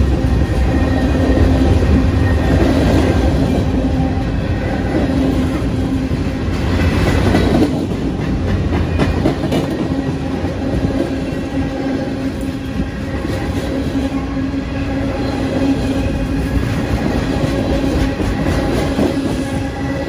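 Norfolk Southern manifest freight train's cars rolling past at close range: steel wheels rumbling and clacking over the rail joints, with a steady tone running underneath.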